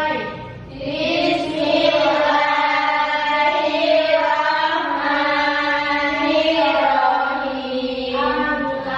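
A woman singing slow, long-held notes in a chant-like melody.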